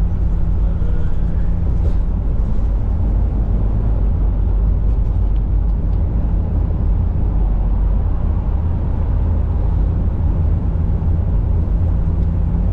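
Steady low rumble and drone of a vehicle's engine and tyres while driving, heard from inside the cabin.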